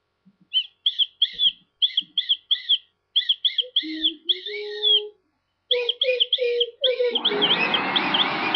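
A small bird chirping in quick short calls, two or three a second. About seven seconds in, a vacuum cleaner starts up, its motor whine rising, and runs steadily under the chirps.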